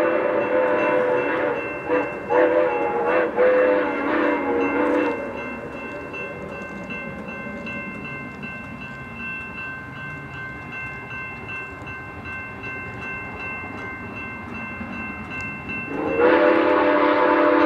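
Steam whistle of Soo Line 1003, a 2-8-2 Mikado steam locomotive, blowing a chord for the grade crossing for about five seconds with a few short breaks. The whistle then stops and a railroad crossing bell rings on in a steady rhythm, until the whistle sounds again about sixteen seconds in.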